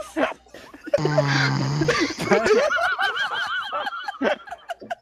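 A loud snore coming over a voice-chat headset microphone about a second in, followed by several people laughing in quick repeated bursts.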